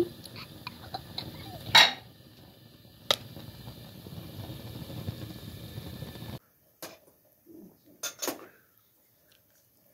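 Clinks and knocks of metal pots and kitchenware over the steady hiss of a lit gas burner, with one loud knock about two seconds in and a sharp click a second later. The hiss then cuts off, and a few softer knocks and clatters follow.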